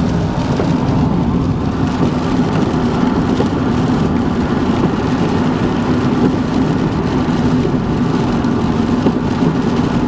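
Steady cabin noise of a car driving in heavy rain: a continuous low drone from the tyres and engine, with rain on the car mixed in.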